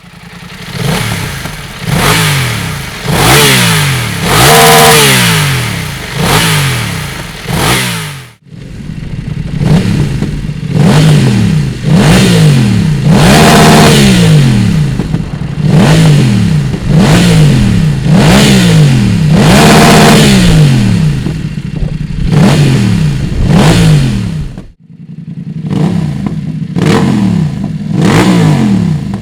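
BMW F900R motorcycle's 895 cc parallel-twin engine, revved repeatedly through its exhaust. Each blip rises and falls quickly, about one a second at the busiest, in three separate takes that cut off abruptly about 8 seconds and 25 seconds in.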